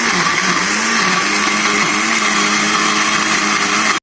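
Electric kitchen blender running at full speed, blending bael fruit pulp with water and sugar into juice. Its motor hum wavers slightly in pitch and cuts off suddenly at the very end.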